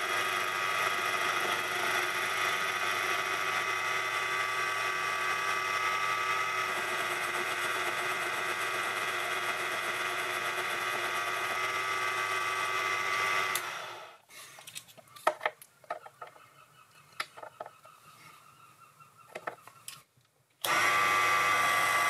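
Mini metal lathe running, a steady whine from its motor and drive while a carbide turning tool takes down the diameter of a stainless-steel threaded rod. About two-thirds of the way through the running sound drops away to a few light clicks and knocks, and near the end the lathe's running whine starts again abruptly.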